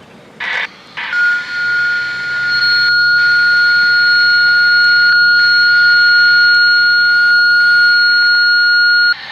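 Radio scanner sounding a dispatch alert tone: one steady, high-pitched, loud beep held about eight seconds, after two short bursts of noise near the start. It is the alert that comes before the county's broadcast announcing the warning-siren test.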